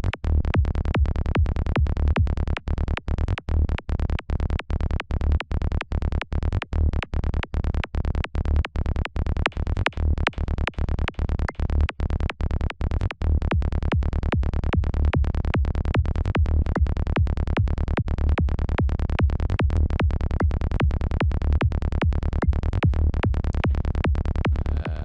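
A psytrance kick-and-bass loop in the key of D from the KickNBassGel software synth, repeating fast and evenly with the weight in the low bass. About halfway through, the gaps between notes fill in and the loop sounds more continuous.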